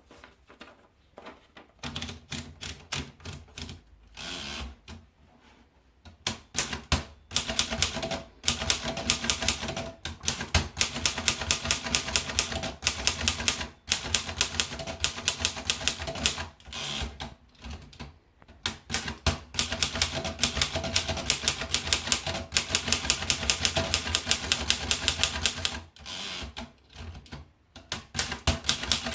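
Remington Portable Model 5 manual typewriter being typed on: fast runs of sharp key strikes, broken by short pauses every few seconds.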